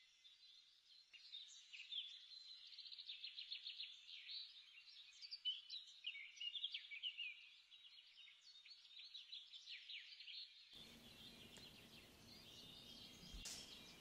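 Faint birdsong: a songbird's rapid, repeated chirps and trills, with the low end cut away so it sounds thin. It stops about eleven seconds in.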